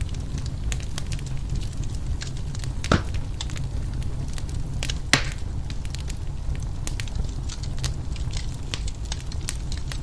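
Wood fire crackling in a fireplace: a constant scatter of small snaps, with two louder pops about three and five seconds in, over a steady low rumble.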